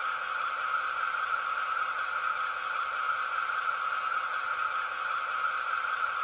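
Model locomotive sound decoder (ESU LokSound 5) playing a Maybach diesel engine sound of a DB class 216 through its small built-in speaker, running steadily with a thin, hissy tone.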